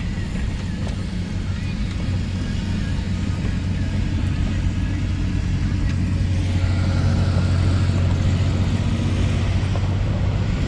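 Car driving along the road, heard from inside the cabin: a steady low engine and tyre hum that grows a little louder in the second half.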